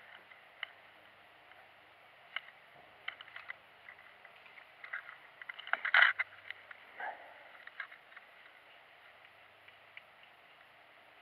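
Fly line and rod being handled while stripping line: scattered small clicks and rustles over a faint steady hiss, with a louder rustle about six seconds in.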